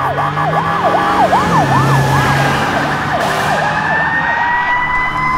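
Fire engine siren on a rapid yelp, about four sweeps a second. After about two seconds it changes to a slow wail that rises steadily in pitch.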